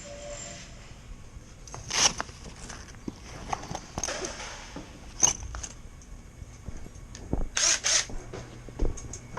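Scattered clicks, knocks and short scraping, rustling noises of things being handled, with two quick scrapes close together near the end.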